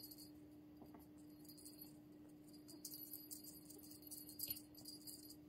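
Faint, irregular jingling of a small bell on a cat wand toy as a kitten bats and kicks it, loudest twice in the second half; a steady low hum underneath.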